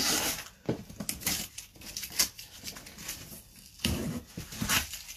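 Blue painter's tape being peeled off a scroll-sawn Baltic birch plywood panel: a series of short, irregular ripping sounds as the tape pulls away from the wood.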